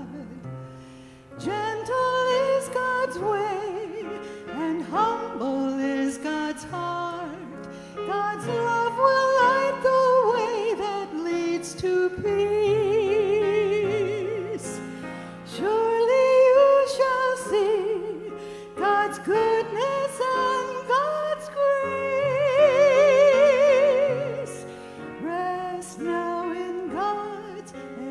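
A solo singer, likely a woman, sings a slow sacred song with wide vibrato to grand piano accompaniment.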